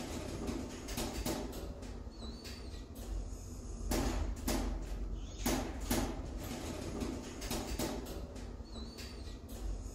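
Passenger lift car travelling up its shaft: a steady low hum with irregular clicks and knocks, and a faint short squeak about two and a half seconds in and again near the end.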